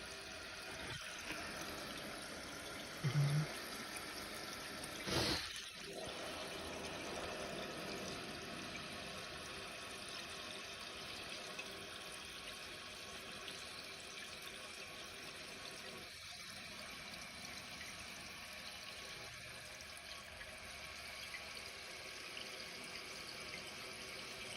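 Toilet tank refilling through its newly installed fill valve after a flush: a steady hiss of running water. A short low thump comes about three seconds in, and a brief louder rush about five seconds in.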